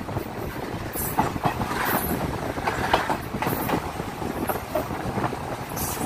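Passenger train running along the track, heard through an open carriage window: a steady rumble of the wheels with irregular clacks and knocks over the rail joints.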